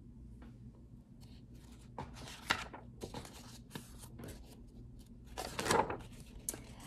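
Paper pages of a large picture book being turned by hand, rustling and flapping, with two louder page movements about two and a half seconds in and again near six seconds.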